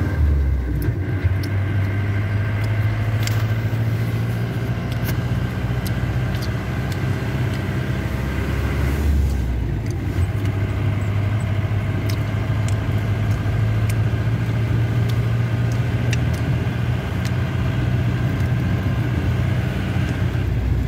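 Car engine and road noise heard from inside the cabin while driving, a steady low hum whose note shifts briefly about nine seconds in, with scattered light ticks and rattles.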